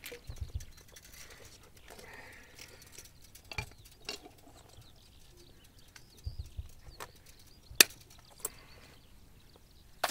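High-tensile fence wire and a metal strainer fitting being handled: scattered light metallic clicks and ticks, the sharpest about eight seconds in, with a few dull low thumps.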